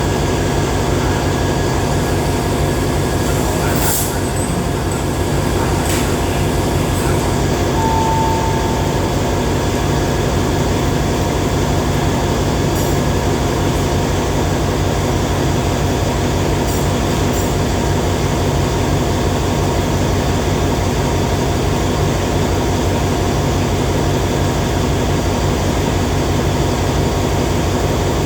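The diesel engine of Alsthom locomotive 4413 runs steadily at a constant pitch, with a couple of sharp clicks about four and six seconds in.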